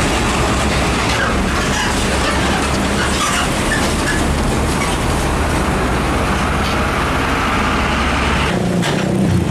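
Hino Ranger tractor unit hauling a container semi-trailer passes and pulls away, its diesel engine running with a steady low hum under tyre and road noise. The low hum drops off abruptly near the end.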